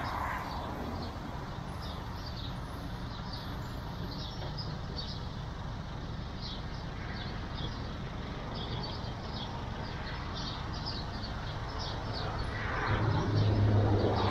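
Hand-turned railway turntable carrying a Model T rail car, rolling round with a steady low rumble. Near the end it grows louder and a steady low hum sets in.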